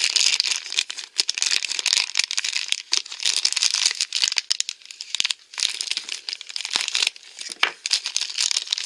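Thin purple plastic wrapper of a Num Noms blind pack crinkling and tearing as fingers pull it open, in quick irregular crackles.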